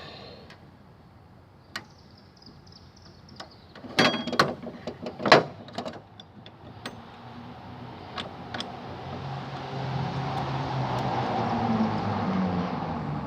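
Small metal clicks and knocks from the parts of an old mortise lock latch being handled and fitted, bunched together about four to six seconds in. After that a low rumble swells up and then eases off, like a passing vehicle.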